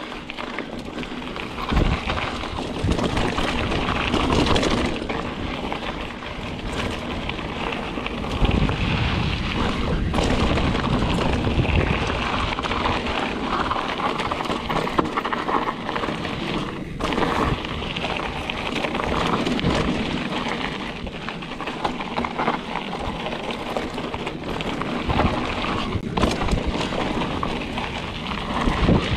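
Mountain bike rolling fast down a dirt singletrack: knobby tyres on dirt and loose stones and the bike rattling over bumps, with wind buffeting the action camera's microphone as low, uneven rumbles.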